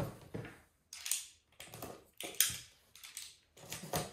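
Paperboard product box being handled and opened by hand, with a series of short rustling, scraping rasps about half a second to a second apart.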